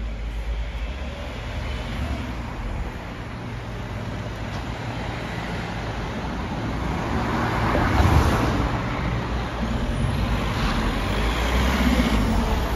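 Road traffic on a city street: cars driving past with a steady low rumble. The closest and loudest pass comes about eight seconds in, and another car passes near the end.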